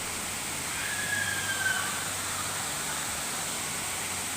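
Waterfall rushing in a steady, even roar of falling water. A brief, slightly falling high tone sounds over it about a second in.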